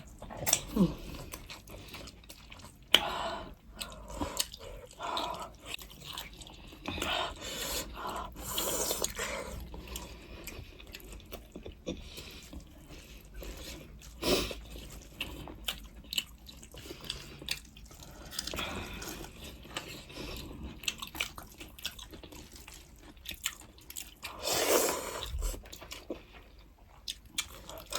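Close-miked eating: wet chewing and slurping of goat-meat soup, with irregular smacks and small clicks.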